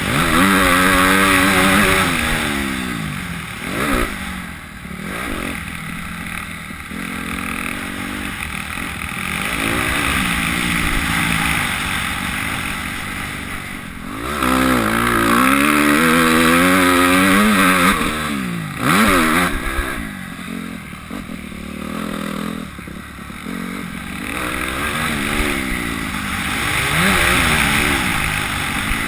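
Motocross dirt bike engine under hard riding, its pitch climbing and dropping again and again as the rider opens the throttle and rolls off through the corners.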